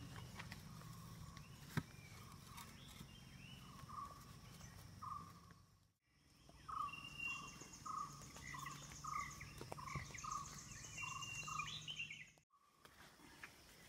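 Faint rural outdoor ambience: a bird repeating a short call about twice a second, with other birds chirping and a steady high buzz, over a low hum. A single sharp knock about two seconds in, and the sound drops out briefly twice.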